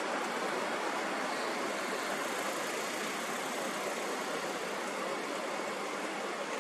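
Steady, even rushing noise with no rhythm, breaks or distinct events.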